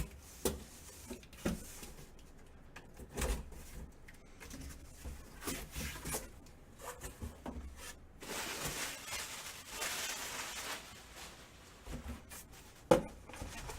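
Cardboard box being cut open and handled: scattered light knocks and scrapes, a longer stretch of scraping and rustling about eight seconds in, and one sharp knock near the end.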